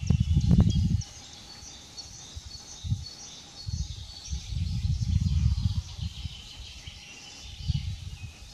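Several small birds singing, with short high chirps throughout. Low gusts of wind rumble on the microphone during the first second, again in the middle, and near the end.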